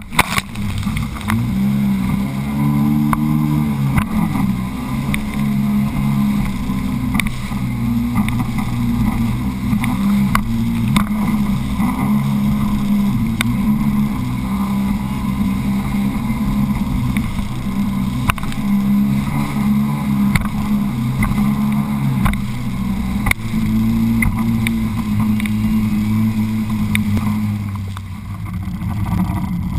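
Sea-Doo personal watercraft engine running at speed, heard on board, its pitch rising and falling with the throttle over the hiss of spray. It eases off briefly near the end.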